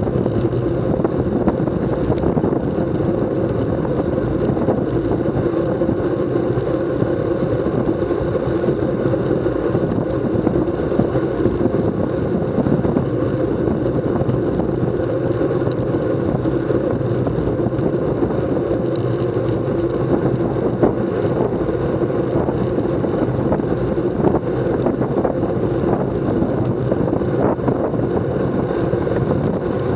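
Steady wind rushing over the microphone of a bike-mounted action camera moving at racing speed, with a constant low rumble.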